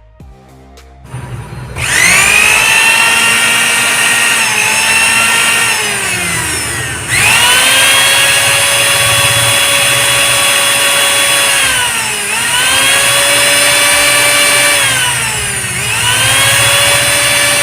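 Bajaj mixer grinder motor running with a freshly fitted shaft bush: it spins up to a high whine about two seconds in, winds down and speeds back up three times, and stops at the end. The running sound is clean, the sign that the bush and sound fault is cured.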